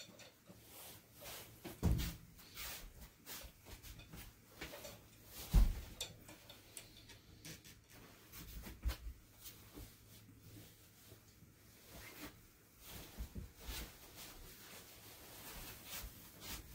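Soft footsteps in tabi socks on tatami mats, kimono rustling and light knocks and clicks of handling, with two louder dull thumps about two seconds and five and a half seconds in.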